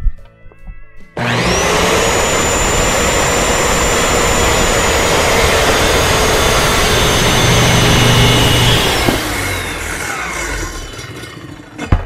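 Corded Skil circular saw switched on, its motor whine rising quickly as the blade spins up, then cutting through a 1x12 board for about eight seconds. Near the end the trigger is released and the whine falls away as the blade spins down.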